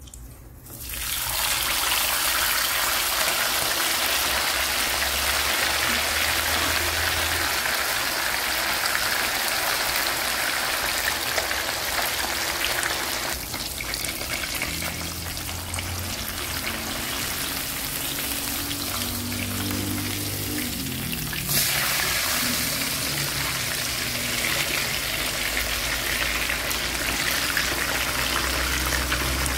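Flour-dusted red snapper frying in a pan of hot oil. The sizzling starts loud about a second in as the fish goes into the oil, eases somewhat in the middle, then jumps back up.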